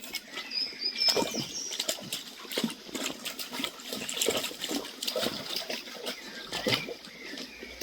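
Water trickling and splashing, with many irregular short splashes and knocks, and brief high bird chirps about a second in.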